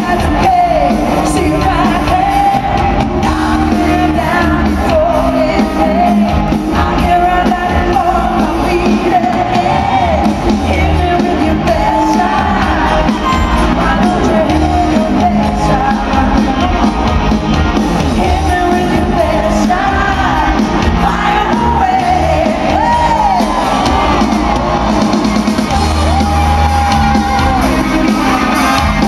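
Female lead vocalist singing live over an amplified rock band with drums, loud and continuous, heard from the seats of a large concert hall.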